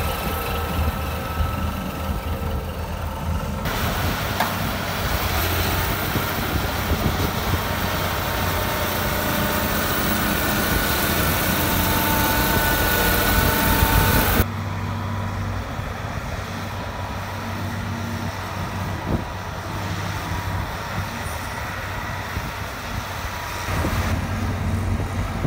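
Diesel engine of a Shantui SR22MP single-drum road roller running steadily as the machine drives over loose soil, with a low hum. The sound changes abruptly twice and is louder and hissier between about 4 and 14 seconds in.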